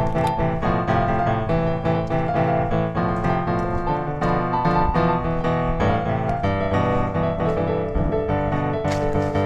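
Background piano music, with notes struck in quick succession.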